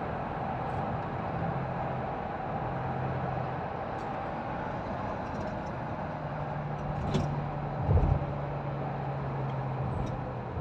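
Steady road and engine noise heard inside a car's cabin while driving on a highway, with a low engine hum under the tyre rumble. A single short thump about eight seconds in.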